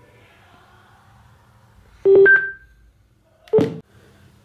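Two short electronic beep tones from a JBL Flip Bluetooth speaker, about a second and a half apart; the first is louder, with a high note that rings on briefly.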